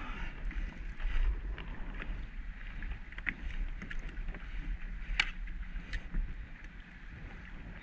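Wind buffeting the microphone with a steady low rumble, with scattered small clicks and taps from handling, one sharper click about five seconds in.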